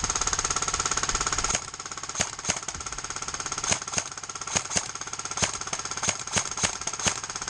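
Airsoft gun firing full-auto in one long sustained burst: a rapid, even rattle, loudest in the first second and a half, with sharp louder cracks scattered through it.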